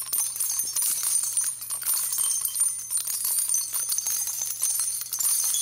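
Jingling bells used as a transition sound effect, a steady shower of fine high tinkles, over a faint low hum.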